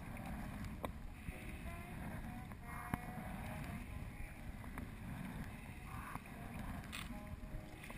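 Sea kayak being paddled on choppy water: paddle strokes and water splashing and lapping against the hull, over a steady low wind rumble on the microphone, with a few light clicks.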